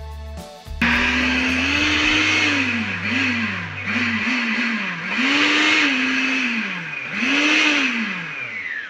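Empty blender on a West Point FWF4981 kitchen robot (800 W motor) running: it starts about a second in, its motor whine rising and falling in pitch several times as the speed knob is turned, then winding down at the end.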